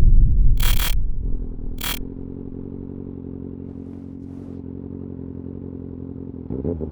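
Kawasaki Ninja ZX-6R inline-four engine idling steadily, with a quick throttle blip near the end. A loud low rumble fades out over the first two seconds, with two short bursts of hiss in it.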